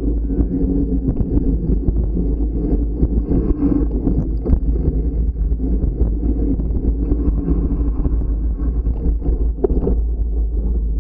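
Fat bike rolling down a dirt trail: a steady rumble of wide tyres and wind buffeting the microphone, with many small rattles and clicks throughout.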